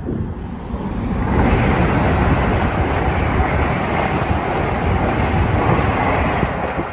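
LNER Azuma high-speed train passing at speed: a rushing noise of wheels on rail and air that builds about a second in, stays loud and eases off near the end. Wind buffets the microphone throughout.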